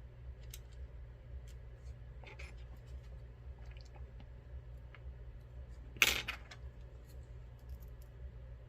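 Small metal clicks and scrapes of tools working the sliders out of a Mul-T-Lock MT5+ lock, with one sharp, loud clack about six seconds in.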